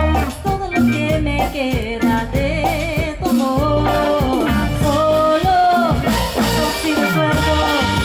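Live cumbia band playing, with a voice singing the melody over a steady bass line.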